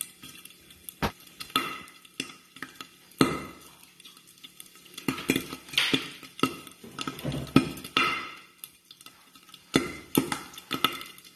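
Irregular clinks and knocks of metal kitchenware, some ringing briefly, over a faint sizzle of pork cooking in a lidded pan.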